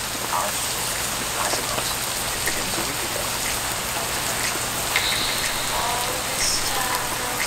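Steady rain falling on the tent, with a few light clicks of metal chopsticks against a bowl.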